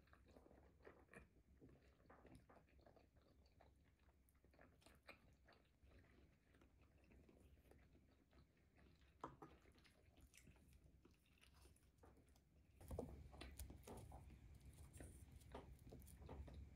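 Quiet eating sounds: a fork and spoon tapping and scraping on a ceramic plate while twirling pasta, with faint chewing. Near the end the sounds grow louder as a fork cuts into the pastry crust of a quiche.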